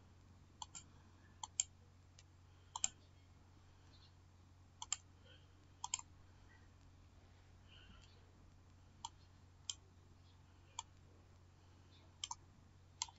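Computer mouse clicking, single clicks and quick double clicks at uneven intervals, over a faint steady low hum.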